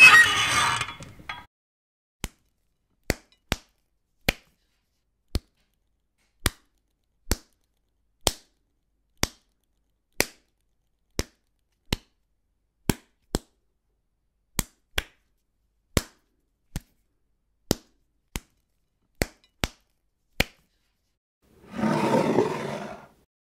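A series of about two dozen short, sharp clicks or smacks, unevenly spaced at roughly one a second, with a brief noisy rustle just at the start and another about a second and a half long near the end.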